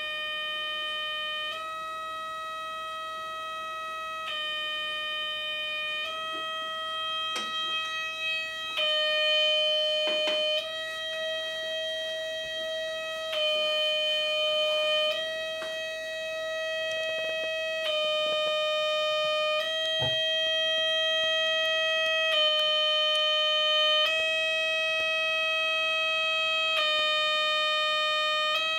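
Gakken MyKit MX-180 electronic kit's oscillator circuit sounding a steady, buzzy electronic tone through its small speaker. The pitch steps slightly up and down every second or two, with a few faint clicks along the way.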